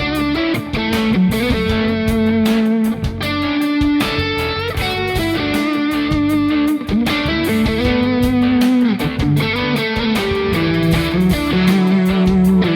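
Soloking MS-1 Custom electric guitar playing a held, singing lead melody, with string bends and vibrato.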